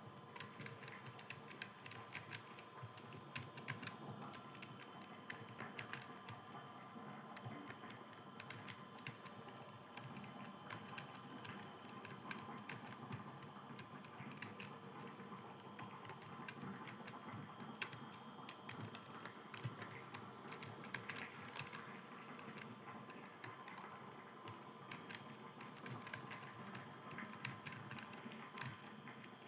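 Continuous fast typing on a computer keyboard: a steady, irregular stream of faint keystroke clicks, with a few louder key strikes now and then.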